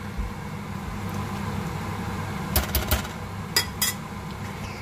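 A metal spoon clinks sharply against a stainless steel pot five times, in two quick groups past the middle, over a steady low hum.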